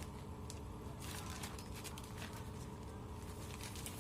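Faint handling noise as a parcel is opened by hand: soft rustles and a few small clicks of packaging over a low room hum.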